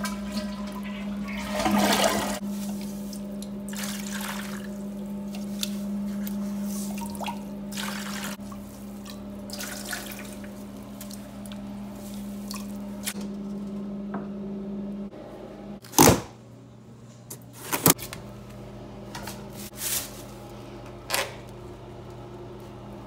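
Water running into a toilet tank through its float-cup fill valve, with a steady hum. After about 15 seconds the hum stops and there are several sharp knocks and scrapes.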